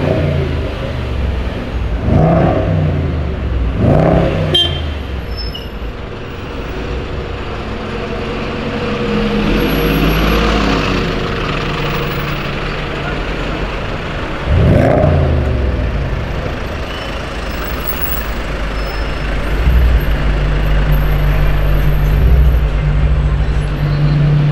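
Range Rover Sport SVR's supercharged 5.0-litre V8 revving in short blips, three times: about two, four and fifteen seconds in. Near the end it settles into a steady low exhaust drone, over constant street traffic.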